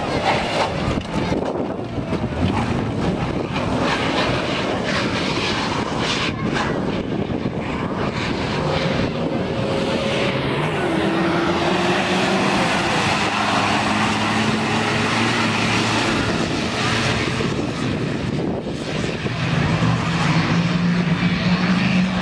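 Off-road 4x4 engines revving and running as the vehicles drive the race course. About ten seconds in, one engine note drops in pitch, and a steadier engine note grows louder near the end.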